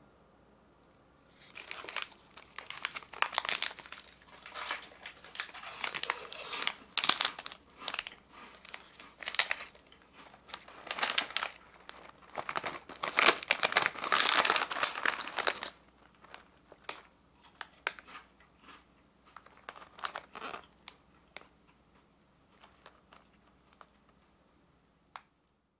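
Crinkly plastic snack packets being picked up and handled, crackling densely for about fourteen seconds, then only scattered crackles as they are set down.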